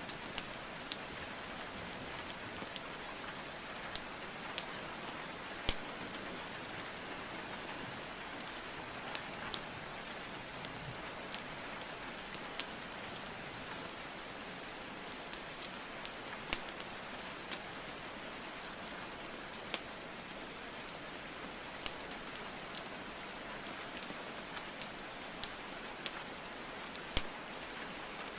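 Steady rain with the sharp, irregular pops and crackles of burning wood logs in a fireplace, a click every second or so.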